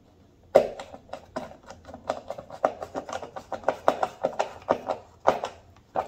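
Fingers handling stiff insulated wires at a plastic terminal block: a run of irregular clicks and taps, several a second, starting with a sharp click about half a second in.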